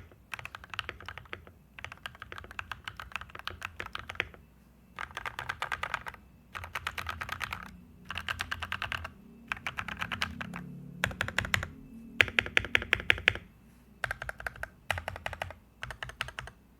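Sades Kunai mechanical keyboard with lubed Gateron Yellow KS-9 linear switches and MT3 keycaps, typed on in quick runs of keystrokes about a second long with short pauses between them. The loudest run comes about twelve seconds in.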